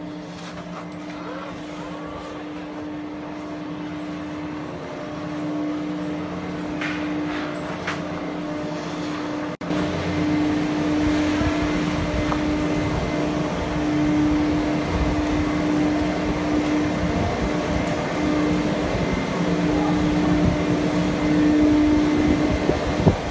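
Chairlift drive machinery humming steadily at the lift station, a constant low drone that grows gradually louder.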